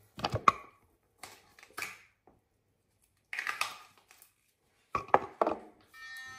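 A few short knocks and clatters of small hard objects being handled, in several separate groups.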